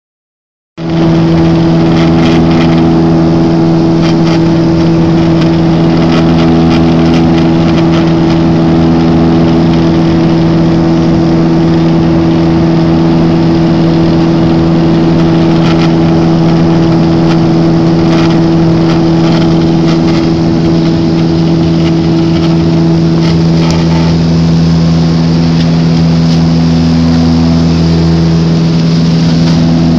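Turboprop engine and propeller of a Saab airliner in flight, heard from inside the cabin next to the propeller: a loud, steady drone with a strong, unchanging propeller hum.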